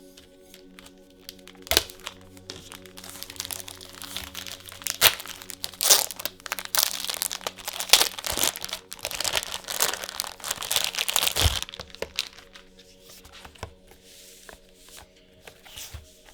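Plastic and foil trading-card packaging crinkling and tearing as it is opened by hand, with a few sharp snaps. The rustling is densest in the middle and dies down toward the end.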